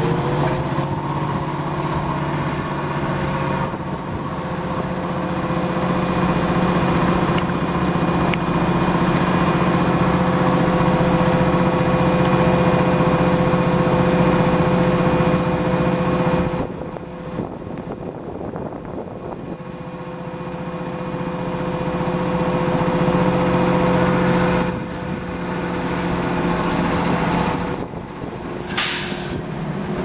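Yellow electric commuter train with its equipment running: a steady mechanical hum with a held mid-pitched tone. The hum drops away for a few seconds a little past halfway, and a short hiss comes near the end.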